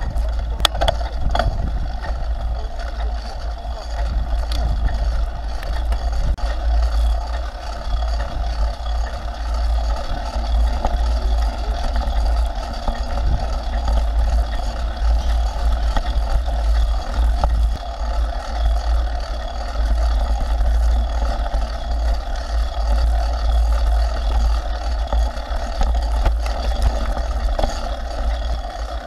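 Wind rushing over a bike-mounted action camera's microphone as a mountain bike rolls fast down a dirt and gravel track, with tyre rolling noise and scattered knocks and rattles of the bike over bumps.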